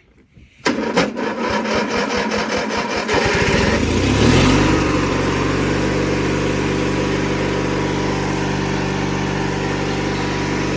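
1997 MTD Yard Machines riding lawnmower engine on a cold start: the electric starter cranks for about three seconds, the engine catches and its pitch rises, and it settles into steady running.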